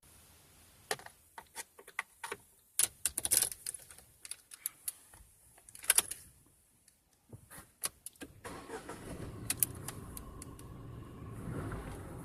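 Keys jangling and clicking at a 2016 Tata Tiago's ignition. About eight and a half seconds in, its petrol engine starts and settles into a steady idle.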